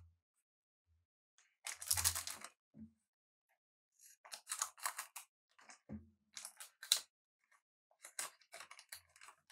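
Trading card pack wrapper and cards being handled. Several short bursts of crinkling and tearing, the longest about two seconds in, with a few soft knocks.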